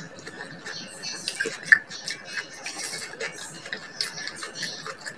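Close-up eating sounds: wet chewing and lip smacks of a person eating cooked water spinach, with small clicks of metal chopsticks against the bowl; one sharper click about a second and a half in.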